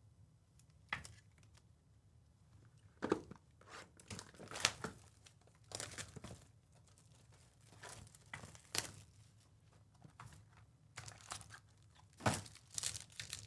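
Plastic shrink-wrap and cardboard of a Panini Obsidian trading-card box being torn open and handled, then a foil card pack picked up: irregular crinkles and rips, the loudest about three, four and a half, nine and twelve seconds in.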